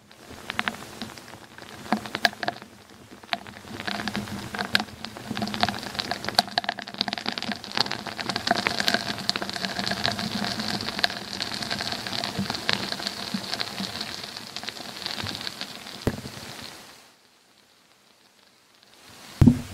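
Underground noise recorded down a 22 m borehole: dense crackling and pattering with many sharp ticks over a faint steady hum, which the uploader claims is North Korean tunnel-digging work. It cuts off about 17 seconds in, and a low thump follows just before the end.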